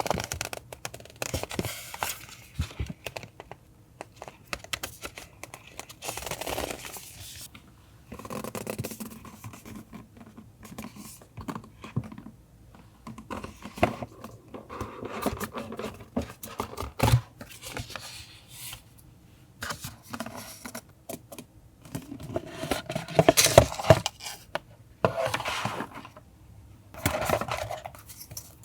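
Paper stationery and packaging handled up close, tearing, crinkling and scraping in irregular bursts with small clicks, loudest a little before the end.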